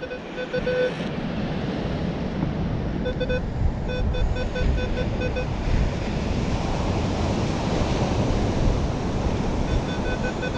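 Steady surf and wind noise on the microphone. Over it, a metal detector's beeping tone sounds in short, evenly spaced pulses a few times: near the start, in the middle, and near the end.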